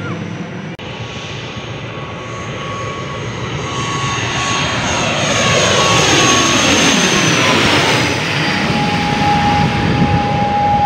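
Twin-engine turboprop airliner on its landing approach passing low overhead: a steady engine whine over a rushing drone that grows louder, then drops in pitch as the aircraft goes past, about eight seconds in.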